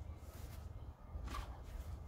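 Faint rustling and soft knocks as a person shifts his weight over a heavy punching bag on a rug, under a low rumble of wind on the microphone.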